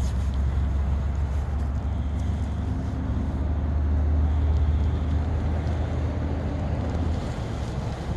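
A steady low rumble that eases off about seven seconds in, over the rustle of a pop-up tent's nylon shell as it is folded down on its spring-steel hoop.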